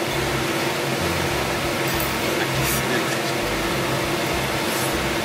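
Steady hum and airy rush of commercial kitchen ventilation fans, with a constant low drone.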